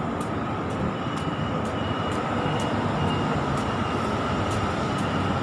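Steady city traffic noise, a dense even rumble of passing vehicles, with a faint high beep repeating about twice a second.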